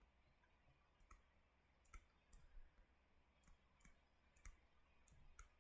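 Near silence broken by about ten faint, irregularly spaced clicks.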